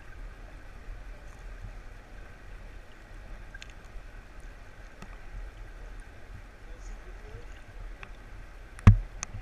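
Creek water flowing, heard underwater through a GoPro's waterproof housing: a steady low rumble and hiss with scattered faint clicks. A single sharp, loud knock comes near the end, with a smaller click just after it.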